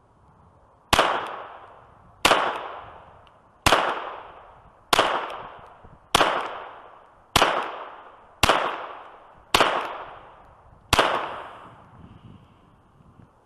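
Glock 44 .22 LR pistol firing CCI Blazer 38-grain lead round nose ammunition: nine evenly paced shots of slow aimed fire, about one every 1.2 seconds, each with a short echoing tail.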